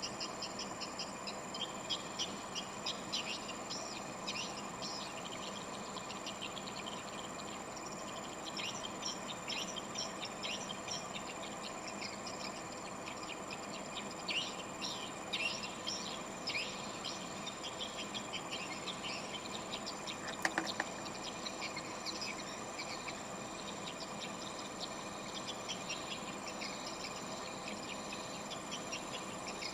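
Swiftlets twittering: many short, high chirps in irregular clusters over a constant thin high tone, with two sharp clicks about twenty seconds in.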